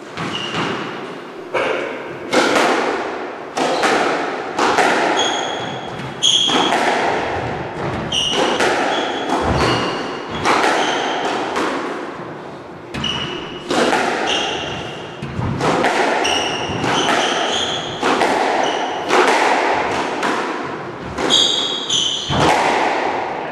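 Squash rally: the rubber ball smacked by rackets and striking the court walls roughly once a second, each hit echoing around the enclosed court, with trainers squeaking on the wooden floor between shots.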